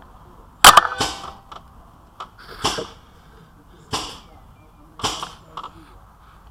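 Paintball marker shots: two sharp, very loud cracks in quick succession under a second in, then several softer pops with a hiss roughly every second or so, and a few faint clicks.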